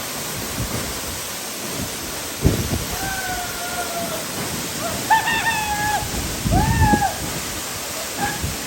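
Waterfall rushing steadily and close by. Over it come a few short, high pitched calls, and there is a brief low thump about two and a half seconds in.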